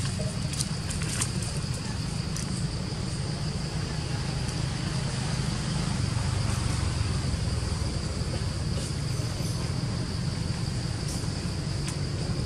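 Insects buzzing steadily in one high, even drone, over a constant low rumble, with a few faint clicks.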